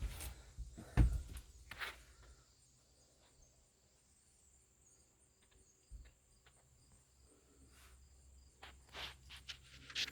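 Footsteps and knocks on an RV's floor, a few scattered thuds with a cluster of steps near the end. A faint steady high-pitched tone runs underneath.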